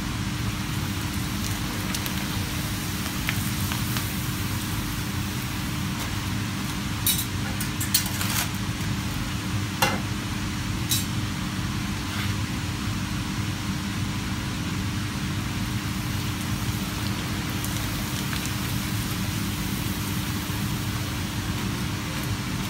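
Hot oil sizzling and bubbling as pappadoms deep-fry in a pan, over the steady hiss and hum of a kitchen range and ventilation. A few sharp clicks come between about seven and eleven seconds in.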